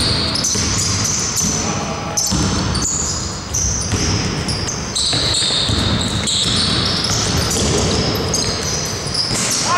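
Indoor basketball game: sneakers squeak again and again on the gym floor and the ball bounces, with players calling out, all echoing in the hall.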